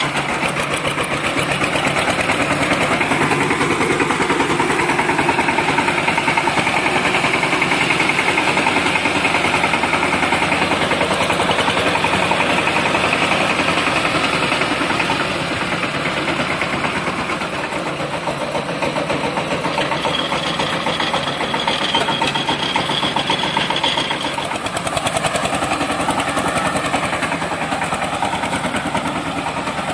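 Single-cylinder diesel engine of an 18 hp FORTE mini-tractor running steadily, heard close up as the tractor drives along.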